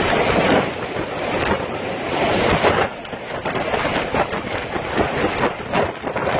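Strong gusty wind buffeting the microphone over storm waves on Lake Superior washing against the pier, in a loud, rushing noise that swells and eases with the gusts.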